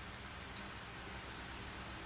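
Two faint computer-mouse clicks about half a second apart near the start, over a steady low hum of room and computer noise.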